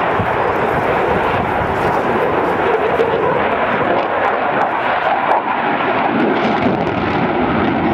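Eurofighter Typhoon's twin Eurojet EJ200 turbofans running in afterburner during a display turn, a loud, steady jet noise.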